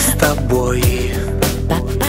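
Song music with a steady drum beat under held pitched instrumental tones.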